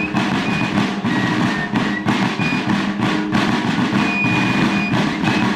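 Fife-and-drum music: a rapid, busy drum beat with short high fife notes over it.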